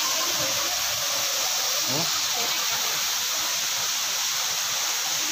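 A waterfall: a steady, even rush of falling water, with faint voices underneath in the first couple of seconds.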